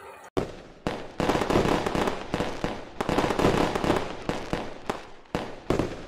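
Fireworks going off: a rapid series of sharp bangs with crackling between them, starting abruptly just after the start.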